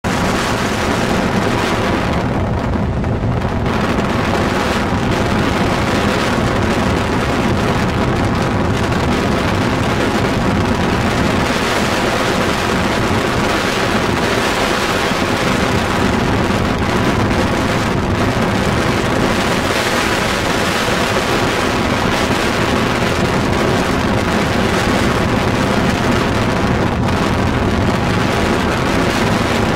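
Steady road noise from a vehicle travelling at speed, with wind buffeting the microphone.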